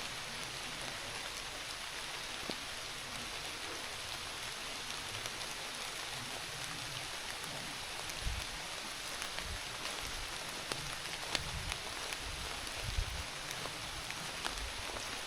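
Steady rain falling, with scattered drops ticking, and a few brief low bumps in the second half.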